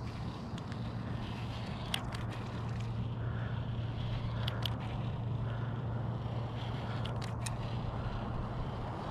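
Steady low hum under a hiss of open-air wind and water, with a few short, sharp clicks from the rod and baitcasting reel being handled while a lure is cast and retrieved.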